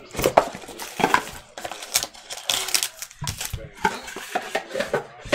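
Trading-card packaging being handled: shrink-wrap plastic crackling and a cardboard box being opened, with a foil-wrapped pack taken out and set down. It comes as an uneven run of crinkles, clicks and light knocks.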